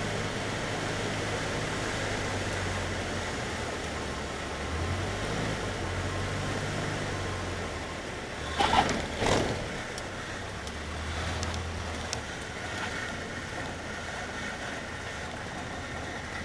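Inside a Cessna 152's cabin, its four-cylinder Lycoming engine runs at low power under steady airflow noise. A little past eight seconds in come two short, loud tyre chirps, a split second apart, as the main wheels touch down, followed by the steady run of the landing rollout.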